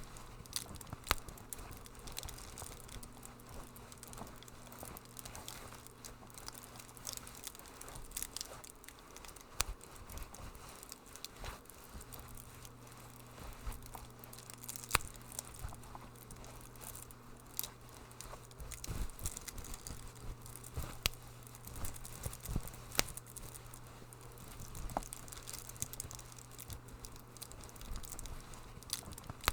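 Wood fire crackling in a fireplace: irregular sharp pops and snaps over a soft steady hiss, with a low steady hum underneath.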